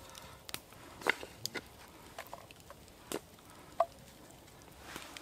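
Raw potato slices laid by hand into a cast-iron Dutch oven: a few sharp, separate clicks and taps as slices land on each other and knock the pot, one near the end with a short ring.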